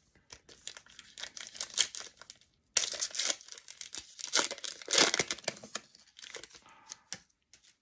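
Foil trading-card pack wrapper being torn open and crinkled: a dense run of sharp crackles, with a brief pause about two and a half seconds in.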